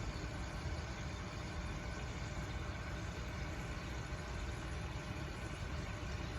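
A steady low rumble with a faint hiss and hum, with no distinct events.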